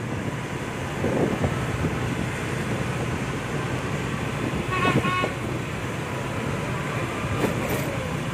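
Motorbike riding along a city street, with a steady rumble of engines, road and wind. About five seconds in comes one short horn beep.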